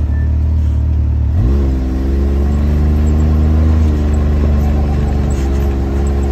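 Off-road vehicle's engine running under load on a dirt trail, its pitch rising about a second and a half in as it speeds up, then holding steady.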